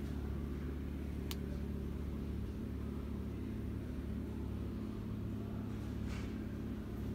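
Steady low mechanical hum, with a single sharp click a little over a second in.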